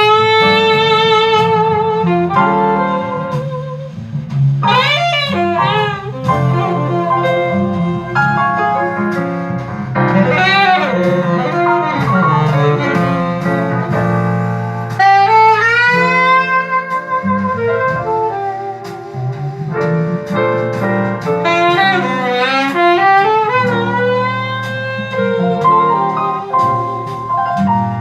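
Recorded jazz with a lead saxophone singing a slow melody with vibrato over a low accompaniment, played back through an Altec 32A right-angle horn loudspeaker.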